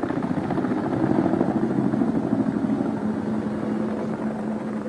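Tandem-rotor helicopter flying a low pass and banking steeply, its rotors beating in a rapid, even pulse over a steady engine hum. It grows louder over the first second and then holds.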